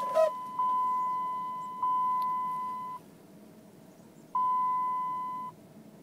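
Dashboard warning chime of a 2005 Dodge Ram 2500 with the key on and the engine not yet running: a steady electronic ding that fades over about a second, repeating about once a second, then a pause and one more ding. A short bump just after the start.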